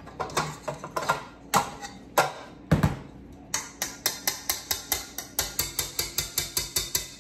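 KitchenAid stand mixer's wire whisk attachment and stainless steel bowl clanking as the whisk is taken off and the bowl lifted from the mixer, with a few sharp metal knocks. Then a fast, even run of light metal clicks, several a second.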